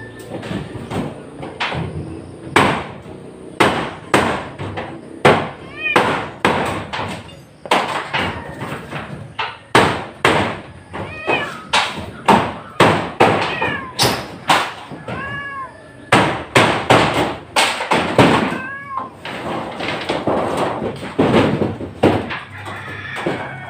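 Repeated irregular banging and knocking on a corrugated metal roof as the roofing sheets are worked loose. A cat meows about four times.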